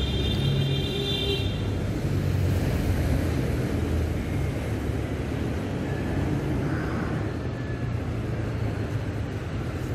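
Steady low rumble of city road traffic, heard from a moving bicycle. A brief high tone fades out in the first second or so, and fainter short tones come about seven seconds in.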